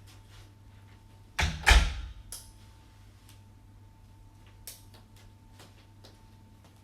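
A door being shut: two heavy thumps about a third of a second apart, then a few faint clicks.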